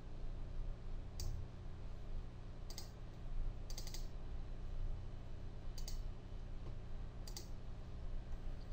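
Computer mouse button clicking: five separate clicks spread over several seconds, one of them a quick double-click near the middle, over a steady low hum.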